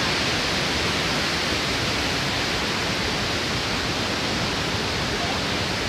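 Steady rush of the Iguaçu Falls cascades: an even, unbroken noise of falling white water.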